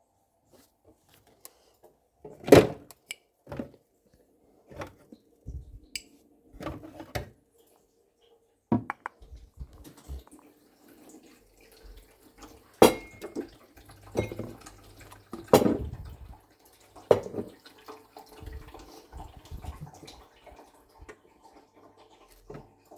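Kitchen clatter: intermittent knocks and clinks of dishes, cookware and utensils being handled, with irregular gaps between them and a few louder knocks.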